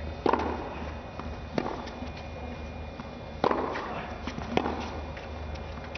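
Tennis rally: a ball struck back and forth by racket strings, four sharp hits one to two seconds apart, each with a short echo of the hall, and fainter ticks of the ball bouncing between them.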